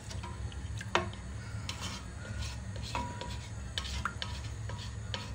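A spatula stirring thin, oily broth in a steel pot, the liquid swishing while the spatula knocks and scrapes against the pot now and then, most sharply about a second in. A steady low hum runs underneath.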